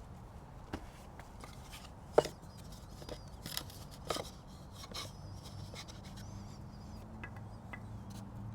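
Scattered knocks, clicks and short scrapes from a potted juniper bonsai being handled and shifted to a new angle, the sharpest knock about two seconds in, over a low steady hum.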